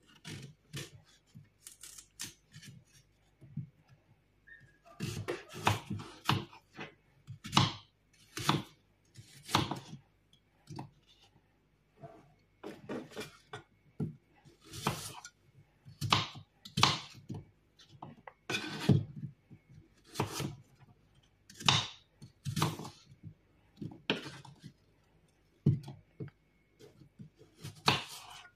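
Kitchen knife cutting an apple into small pieces on a wooden board: a run of short, separate cuts and knocks, sparse for the first few seconds and then about one a second.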